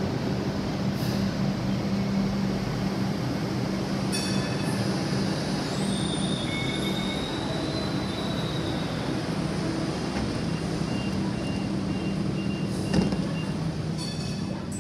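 Hong Kong Light Rail Phase 5 light rail train running into the platform and standing, with a steady low hum throughout. A high whine rises and fades partway through.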